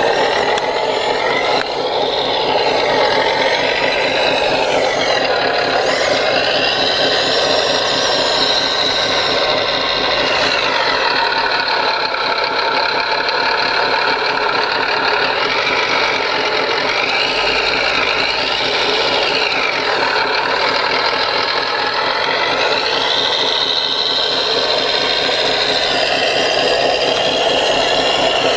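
Simulated diesel engine sound from an RC model's sound module running steadily with an even low chugging, over the whine of the CAT 963D track loader model's electric drive motors and gears, which rises and falls again and again as the loader drives and turns.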